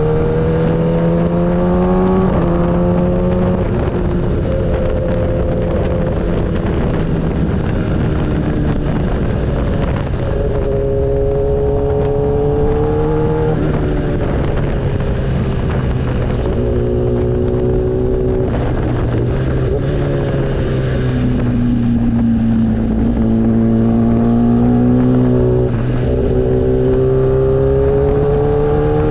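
Motorcycle engine under way, its pitch climbing as it revs through a gear and dropping back at each shift, several times over; a steady rush of road noise runs underneath.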